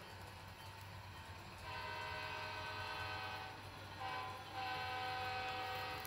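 Horn sound from the Soundtraxx Tsunami 2 sound decoder in a model Amtrak P32-8BWH diesel locomotive, a chord of several notes: a long blast about two seconds in, a short toot around four seconds, then another long blast near the end.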